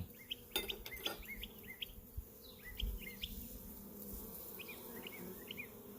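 Honeybees buzzing around an open hive as the frames are worked, a steady low hum. Short bird chirps come in three small groups over it, and there are a couple of light clicks about a second in.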